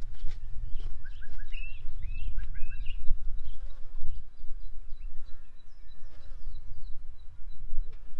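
Wind buffeting the microphone as a steady low rumble, with wild birds chirping over it: a run of short, rising calls between about one and three seconds in, then fainter high chirps.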